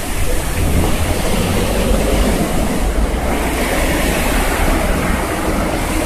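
Steady hiss of rain and car tyres on a waterlogged street, growing louder from about halfway as a van drives through standing water and throws up spray, over a low rumble.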